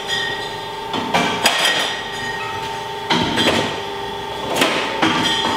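Hard clacks and knocks, about half a dozen at uneven intervals, from glass beer bottles and hand-operated labelling equipment being worked, over a steady machine hum.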